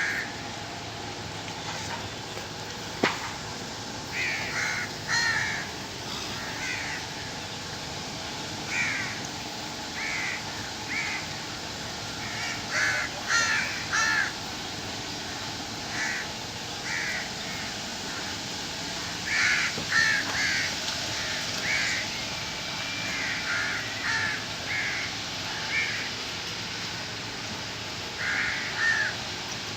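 Birds calling again and again in short, separate calls, over a steady background hum, with one sharp click about three seconds in.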